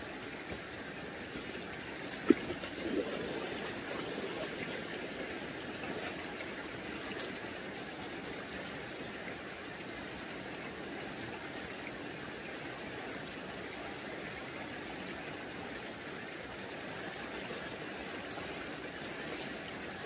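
Shallow mountain stream running over rocks, a steady rush of water. About two seconds in there is a single sharp knock, followed by a short burst of splashing as a person wades into the water in waders.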